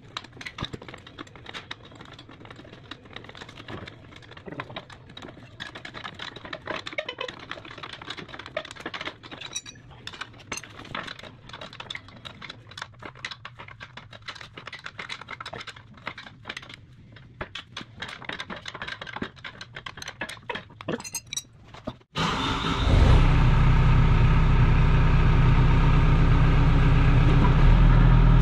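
Light metallic clinks and taps of hand work on the machine over a low hum; then, after an abrupt cut about 22 seconds in, a heavy-equipment diesel engine running steadily and much louder.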